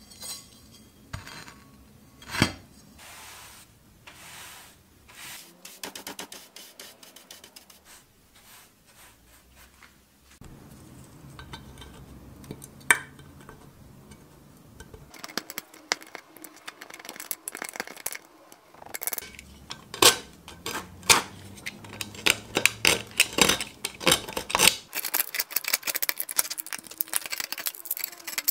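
Metal hand tools, a pick and a utility-knife blade, scraping and picking rust off a cast iron pan, metal on metal. The scrapes and clinks come irregularly at first, then turn into fast, dense scraping near the end.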